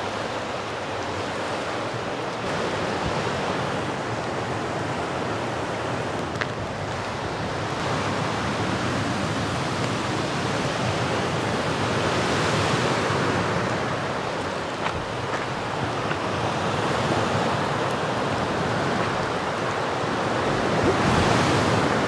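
Steady rush of a fast-flowing river running high with rain and snowmelt, growing louder toward the end.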